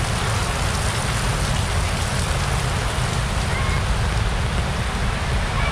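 Heavy typhoon rain pouring steadily on a wet street, an even hiss with a deep rumble underneath.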